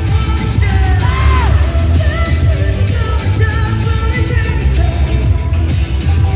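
Live K-pop concert music over arena speakers, heavy on the bass, with a singing voice and fans yelling along from the crowd.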